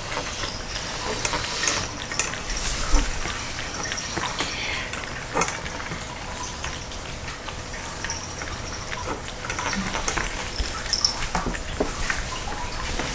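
Two cats eating from their food bowls close to the microphone: continuous smacking and chewing, with many small clicks against the bowls.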